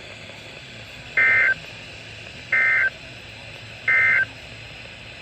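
Three short bursts of EAS SAME digital data tones, the warbling two-tone screech of a NOAA Weather Radio alert code, each about a third of a second long and about a second apart. Their shortness fits the end-of-message code sent after the warning text, over a faint radio hum and hiss.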